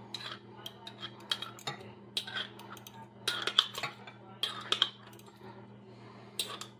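Metal utensil clinking and scraping against the jar and pan as marinated mushrooms are scooped into the pan: irregular clusters of light clicks and clinks.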